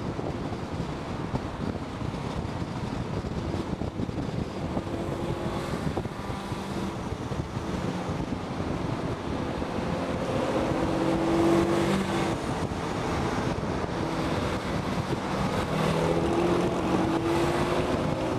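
Car engine running on the move, rising in pitch as it accelerates a little past the middle and again near the end, over steady wind rush on the microphone.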